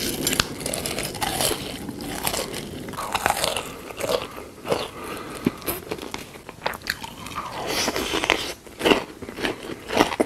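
Close-miked eating sounds: a person biting and chewing crunchy food, with irregular crisp crunches and wet mouth clicks.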